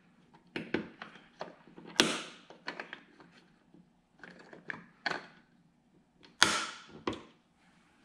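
Plastic clicks and taps from a motorcycle turn-signal lens cap being turned and pushed back into its housing. Two louder sharp snaps come about two seconds in and about six and a half seconds in.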